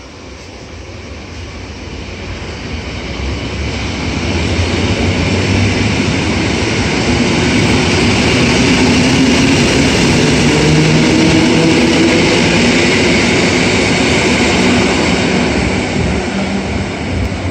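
EN57 electric multiple unit running past along the platform. Wheels rumble on the rails, with a steady low hum as the cars go by. The sound builds as the train approaches, is loudest about halfway through while the carriages pass, and fades a little as it pulls away.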